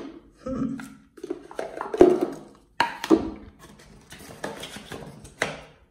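Pieces of a white Echo Dot holder being handled: a series of sharp knocks, clicks and scrapes as the hard parts are fitted together and set down on the countertop.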